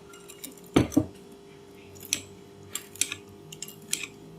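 A spoon knocking and clinking against a bowl while the dipping sauce is mixed: one heavier knock just before a second in, then a series of light clinks.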